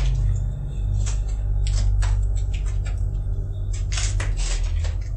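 A low, steady drone of background music, with scattered sharp clicks and crunches over it that bunch together near the end.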